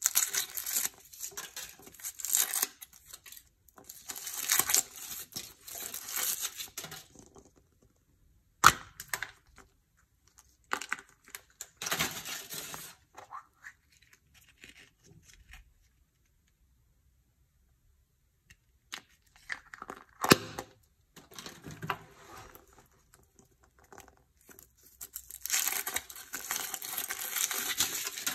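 Thin foil wrapper of a Chupa Chups chocolate surprise egg crinkling and tearing as it is peeled off by hand, in several bursts. A few sharp clicks and snaps come from the chocolate shell breaking and the plastic toy capsule being opened. A few seconds of silence fall midway.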